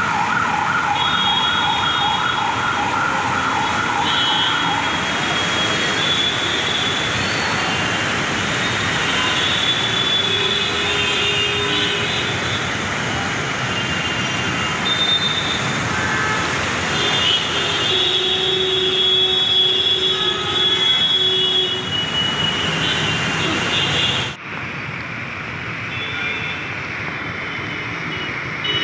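Heavy rain and traffic splashing through floodwater, a steady dense hiss, with a rapidly pulsing two-pitch siren-like alarm for the first five seconds and scattered vehicle horns. About 24 s in it cuts abruptly to a quieter, duller hiss of rain on an open road.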